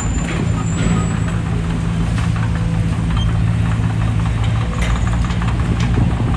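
Diesel engine of a D20P bulldozer running steadily under load, with irregular clanking and clicking from the machine throughout.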